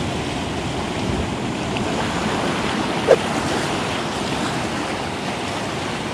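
Sea surf breaking and washing over rocks, a steady rush of waves. A single short blip about three seconds in.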